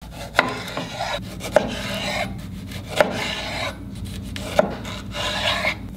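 Kitchen knife slicing a tomato on a bamboo cutting board. Rasping sawing strokes go through the skin and flesh, and each slice ends in a sharp knock of the blade on the board, four times about a second and a half apart.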